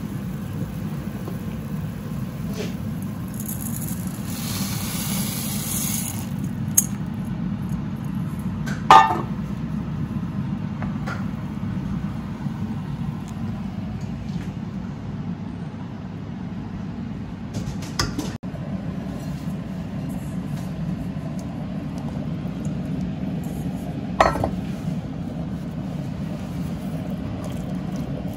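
Kitchen dishes and utensils clinking a few times, the loudest clink about nine seconds in, over a steady low hum, with a brief hiss around four to six seconds in.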